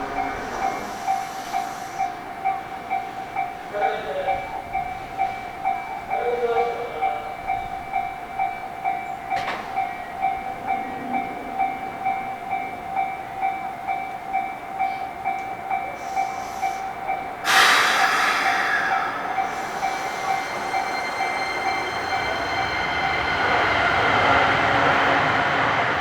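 Japanese railway level-crossing warning bell ringing steadily, about two strokes a second. About seventeen seconds in, a train rushes past, its noise sudden and then building toward the end while the bell keeps ringing.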